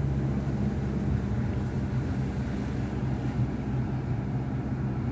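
Car driving, its engine and tyre noise heard from inside the cabin as a steady low hum.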